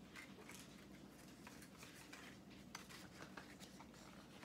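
Near silence: room tone with a few faint, brief rustles and light taps of paper being handled.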